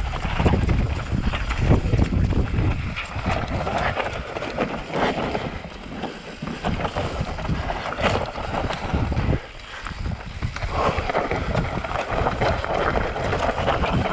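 Mountain bike riding fast down a steep dirt and rock trail: tyres rolling over soil, roots and stones, with frequent knocks and rattles from the bike, under heavy wind noise on the microphone. The rumble drops for a moment about nine seconds in, then picks up again.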